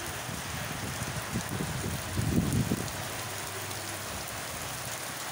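Steady rain falling on a field and dirt track, an even hiss, with a low rumble that swells and fades about two seconds in.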